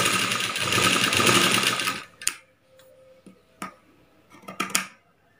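Sewing machine stitching fast for about two seconds, then stopping. It is followed by a few sharp snips of scissors cutting the thread.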